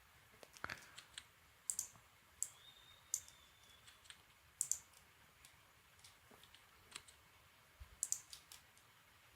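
Faint, irregular clicking of a computer mouse and keyboard, a dozen or so sharp clicks scattered through the stretch.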